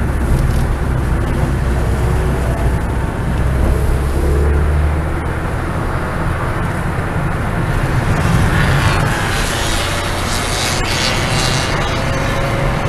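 Ford Fiesta ST engine and road noise heard from inside the cabin on a race track: a steady low drone as the car eases through a slow corner, then the engine note rises as the driver gets back on the throttle and accelerates in the second half.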